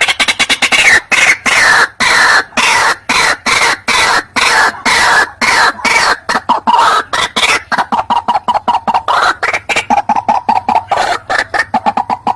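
White-breasted waterhen calling: a fast, unbroken run of harsh, repeated croaking notes, several a second.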